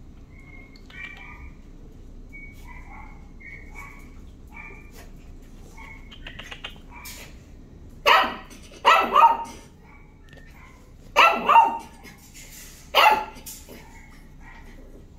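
Dog barking in a shelter kennel ward: about six loud barks in short groups in the second half, with fainter short high calls earlier on.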